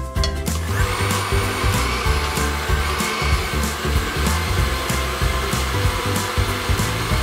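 Countertop blender switching on about a second in and running steadily, puréeing cooked chicken livers with onion and garlic into paté.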